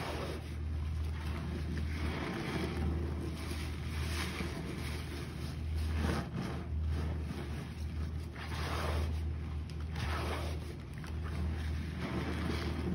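A sponge soaked in foamy detergent-and-bleach water being squeezed and kneaded by rubber-gloved hands in a plastic basin: repeated squelching and sloshing, one squeeze every second or two. A steady low hum runs underneath.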